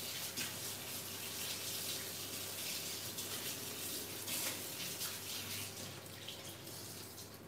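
Kitchen sink tap running as hands are washed under it, a steady rush of water with light splashing that grows quieter near the end.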